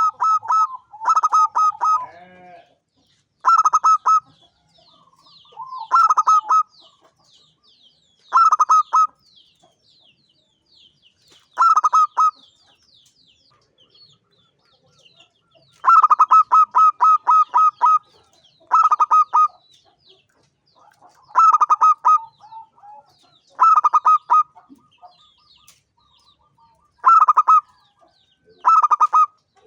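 Zebra dove (perkutut) singing: repeated phrases of rapid staccato coos, every two to three seconds, with a longer phrase about sixteen seconds in. Faint high chirps sound between the phrases.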